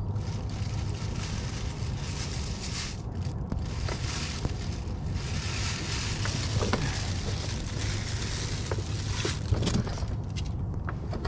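Plastic shopping bag crinkling and rustling as it is worked around an oil filter, with a few small clicks and handling sounds, over a low steady hum.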